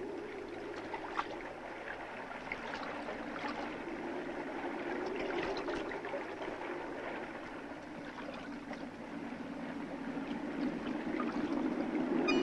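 Flowing river water with small trickles and splashes, swelling and easing in slow waves.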